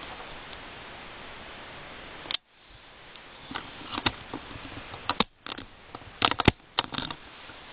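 A camera being handled and zoomed close up: steady hiss that drops out with a click a little over two seconds in, then a quick run of sharp clicks and knocks, loudest about six seconds in.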